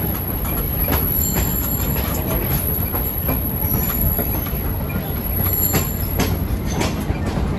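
Train running along the rails: a steady rumble with irregular clanks and knocks, and three brief high-pitched wheel squeals.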